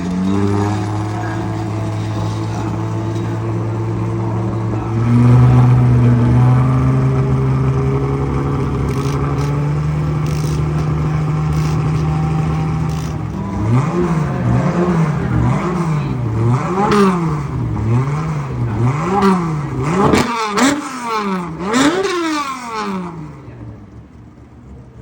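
Nissan S30Z engine running steadily, held at a higher steady speed from about five seconds in, then revved in a string of quick throttle blips, about one a second, before dropping back near the end.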